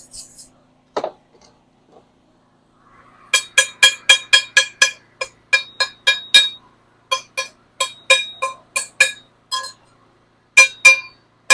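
A welded steel table leg struck with quick hammer blows, about four to five a second in three runs, each blow ringing at the same metallic pitches. It is typical of chipping slag off a fresh weld.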